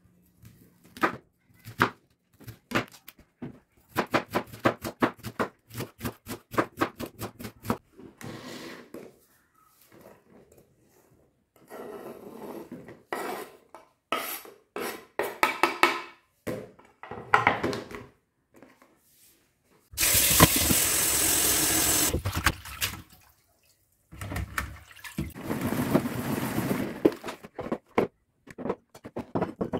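A knife chopping red cabbage on a wooden cutting board in quick strokes, about four a second at its steadiest. Past the middle, water runs loudly for about two seconds, then runs again more softly a few seconds later.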